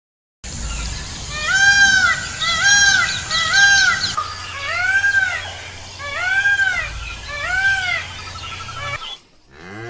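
An animal calling six times in short, clear calls, each rising and then falling in pitch, in two groups of three.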